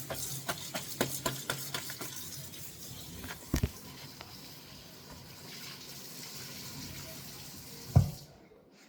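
Tap water running into a sink while a rag is rinsed by hand, with many small splashes and clicks over the first few seconds. A knock comes near the end, and the running water stops abruptly just after it.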